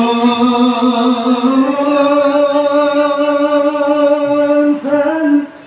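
Amplified solo voice of a marawis lead singer holding long, wavering notes of an unaccompanied vocal opening, with no drums yet. The pitch steps up once about a second and a half in, and the phrase breaks off shortly before the end.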